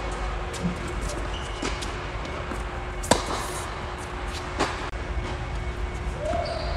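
Tennis ball struck with rackets in a baseline rally: one sharp, loud hit about three seconds in, with fainter knocks about a second and a half before and after it, over a steady low hum.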